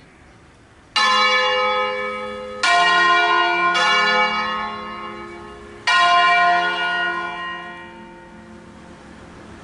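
Church tower bells, a ring of six bronze bells cast by Crespi of Crema in 1885 and tuned in D-flat, struck singly for a slow funeral concert (concerto funebre). Four strokes on different bells come one to two seconds apart, each ringing on and slowly dying away.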